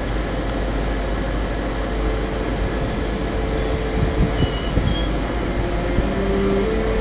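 ÖBB class 1116 Siemens Taurus electric locomotive starting off under power: over a steady rumble, its traction converter sounds one held tone from about two seconds in, then shorter tones that jump from pitch to pitch as it picks up speed.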